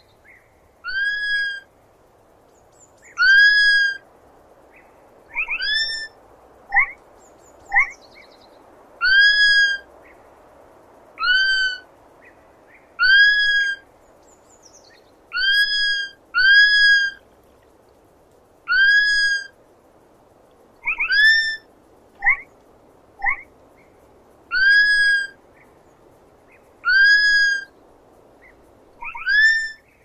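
Sloth giving a long series of short, high-pitched whistled squeaks, one every second or two, most rising sharply and then holding level. A few quicker falling chirps come in between, over a faint steady hiss.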